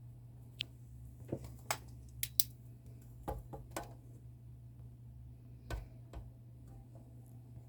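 Akai GX-9 cassette deck being operated: scattered sharp clicks from its buttons and tape transport, several in the first few seconds and one near the middle, over a steady low hum.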